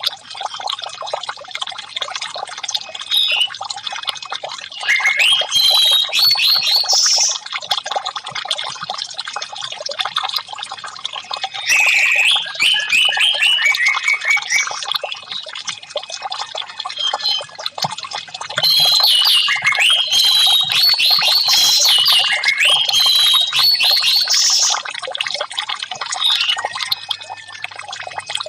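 Orange-headed thrush (anis merah) singing in several bursts of quick, high, varied notes over a steady trickle of running water.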